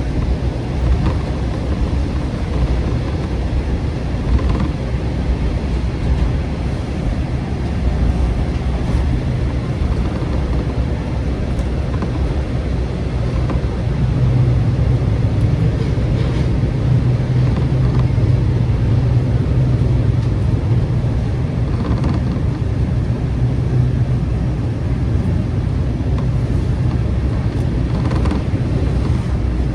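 Inside a JR Shikoku KiHa 40/47 diesel railcar under way: a steady low diesel engine drone over the running noise of the train, with occasional faint clicks. The drone grows louder about halfway through and eases off again a few seconds before the end.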